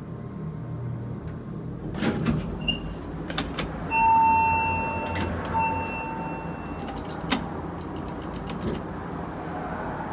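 Electronic elevator chime sounding twice at the same pitch, a long beep then a shorter one, with clunks and knocks from the sliding elevator doors before and after, over a low steady hum.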